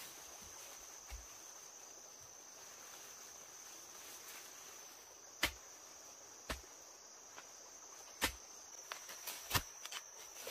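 Insects calling in a steady high-pitched drone. From about halfway in, a few sharp knocks come at irregular intervals, more often near the end.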